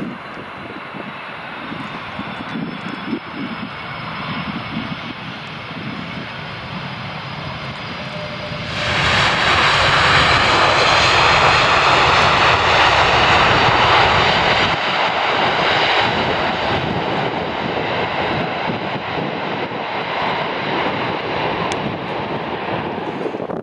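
Airbus A330-300 twin jet engines on the landing rollout. About nine seconds in the engine noise jumps suddenly to a loud roar, typical of reverse thrust being applied after touchdown. It stays at its loudest for several seconds, then eases off a little as the airliner slows.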